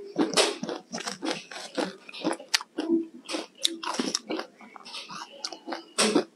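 Close-up crunching as frozen green ice is bitten and chewed, in quick, irregular crunches several times a second, with a metal spoon scraping through the icy tub.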